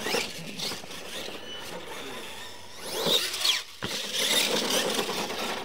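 Radio-controlled monster truck running on a dirt track, its motor whining up in pitch as it accelerates about three seconds in, with tyres scrabbling over the dirt. A single sharp knock comes a little before four seconds in.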